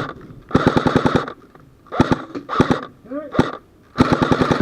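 Airsoft guns firing rapid full-auto bursts of sharp, evenly spaced cracks: one long burst, two short ones, then another that is still going at the end.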